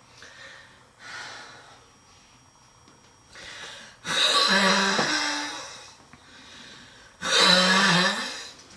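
A girl wheezing: a few soft, breathy breaths, then two long, loud, wheezing breaths with a strained, pitched tone, about four and seven seconds in. Heavy wheezing of this kind goes with a struggle to breathe during a severe coughing attack.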